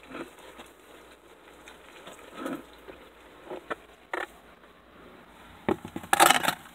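A plastic feeder tub of dubia roaches being handled: scattered scrapes, rustles and taps on the plastic, with a louder cluster of knocks and rattling near the end.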